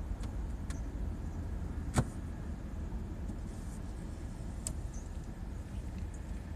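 Steady low rumble of road vehicles driving past, heard from inside a car, with one sharp click about two seconds in.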